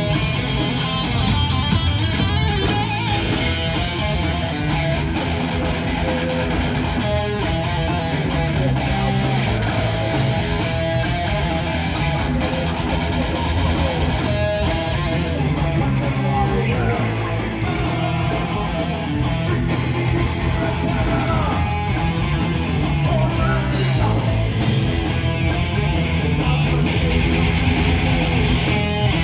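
Heavy metal band playing live: loud electric guitars over bass and drums, a dense, steady rhythm.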